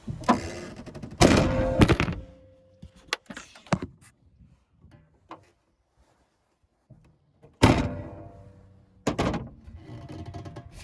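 Metal knocks and clanks from hand tools worked against the condenser fan motor and its mounting, a loud cluster in the first two seconds and more around the middle to the end, some with a short ringing.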